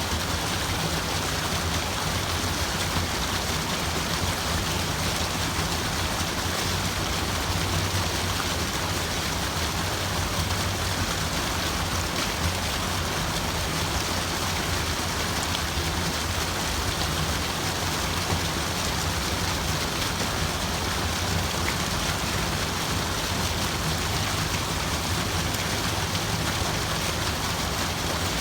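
Water running steadily, a continuous even sound with no breaks or changes.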